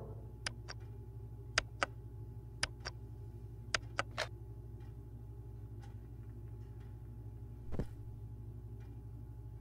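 Wall light switches clicking: nine sharp clicks, mostly in quick pairs, over the first four seconds or so, against a low steady hum. A soft bump follows near the end.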